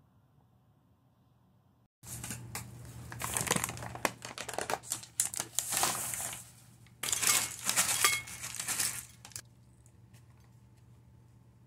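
Crinkling and crackling of a Lay's potato-chip bag being handled, in two spells, about five seconds and then about two and a half, thick with sharp crackles.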